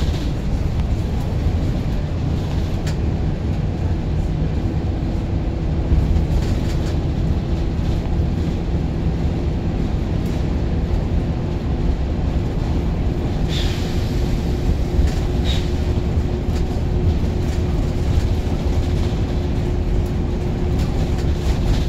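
Single-deck bus on the move, heard from inside the passenger saloon: a steady low engine and road rumble with a faint steady whine. A few brief clicks come a little past the middle.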